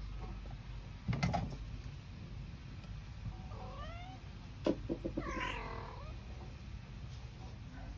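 A kitten meowing: a couple of faint, short, high meows about three and a half seconds in, then a louder, longer meow that rises and falls in pitch about five seconds in. A brief thump about a second in, and a few light clicks just before the louder meow.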